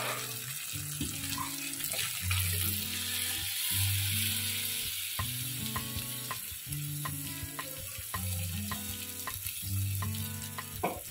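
Food sizzling in a hot pan, the hiss strongest in the first few seconds, under background music with a steady bass line and short repeated notes.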